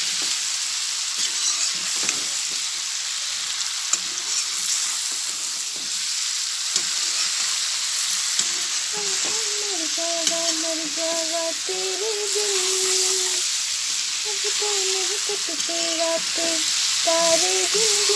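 Jackfruit curry sizzling in an iron kadhai as it is stirred with a metal spatula, with occasional ticks of the spatula against the pan. From about halfway through, a woman hums a tune over the frying.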